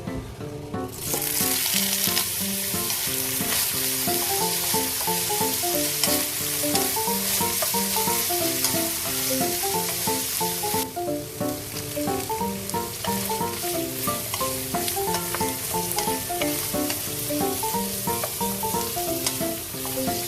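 Food sizzling in a hot frying pan, the loud hiss of frying. It starts about a second in and drops slightly at a cut near the middle. Soft background music plays underneath.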